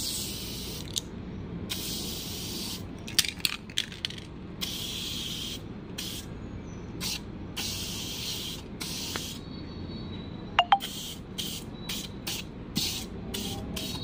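Aerosol can of Urban Company Foam Jet coil cleaner spraying onto a window AC's condenser coil in a series of hissing bursts of varying length, shorter and quicker toward the end. Two sharp clicks a little past halfway.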